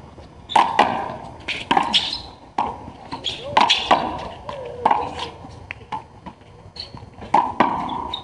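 Handball rally: a small rubber handball struck by open hands and smacking off concrete walls and floor, about ten sharp slaps at uneven spacing, each ringing in the walled court, the last two close together near the end.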